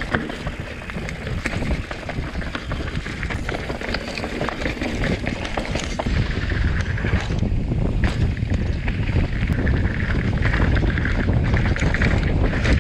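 Rockrider mountain bike riding down a dirt trail: wind rushing over the action camera's microphone and tyres rolling on dirt and gravel, with frequent knocks and rattles from the bike over bumps. The wind and tyre noise grow louder about halfway through.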